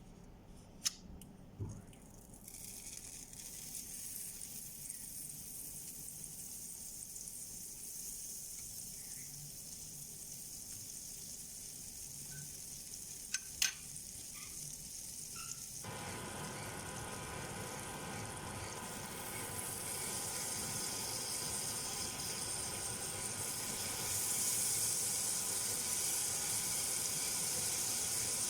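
Food sizzling in a hot pan: a steady frying hiss that sets in after a couple of sharp clicks, fills out about halfway and grows gradually louder. Two more sharp clicks come about halfway through.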